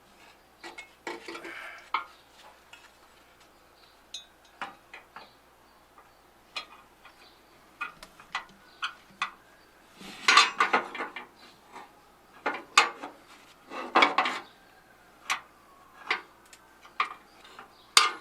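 Irregular metallic clicks and clinks of hand tools and a steel bracket being handled against the car body, with two denser clusters about ten and fourteen seconds in.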